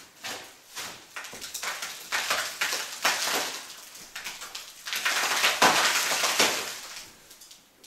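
A hand tool scraping and chipping at an old clay wall around a crack, in repeated rough strokes. The strokes are loudest about two seconds in and again around five to six seconds in.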